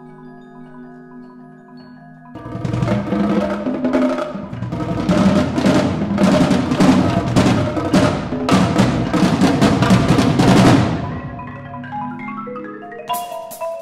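Percussion ensemble playing, with marimba and drums. Soft sustained mallet notes give way about two seconds in to a loud, dense passage of rapid strikes. Near the end this settles into lighter, stepping mallet notes and a few bright high strikes.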